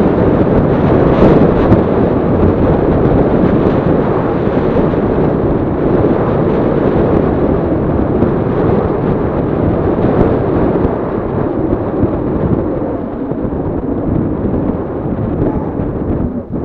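Wind buffeting the microphone of a camera on a moving recumbent bike: a steady, loud rumbling rush that eases off a little in the second half.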